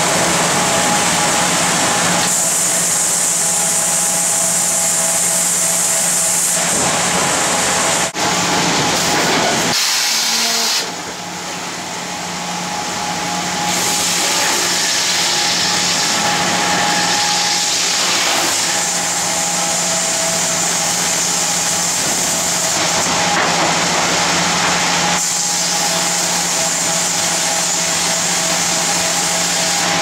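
Sawmill machinery running: a continuous loud mechanical din with a steady low hum and high saw-like noise. It changes abruptly about 8 and 11 seconds in, drops for a few seconds, then builds back up.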